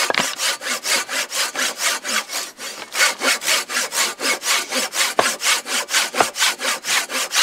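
Hand saw cutting through wood in quick back-and-forth strokes, about five a second, with a brief pause about two and a half seconds in.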